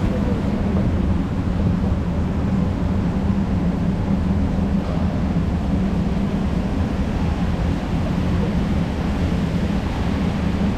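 Descending escalator running: a steady low hum and rumble from its drive and moving steps.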